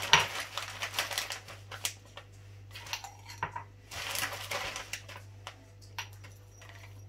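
Whole cloves being scooped from a spice packet with a plastic spoon and dropped into a small glass jar. The packet rustles, and the dried buds make light clicks as they hit the glass.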